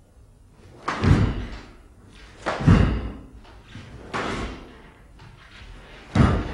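A series of four loud, heavy thuds about one and a half seconds apart, each with a short ringing tail.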